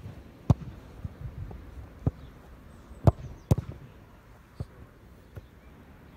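About half a dozen sharp thuds of a football being struck and meeting the goalkeeper's gloves, the ground or the goal, spread out, the loudest about three seconds in with another just after.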